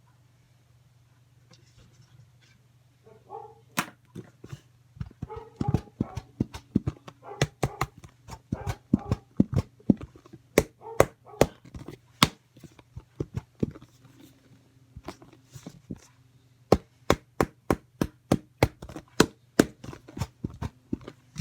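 Slime being squeezed and poked, giving a long irregular run of sharp clicking pops, several a second, starting about three seconds in, with a faint steady hum underneath.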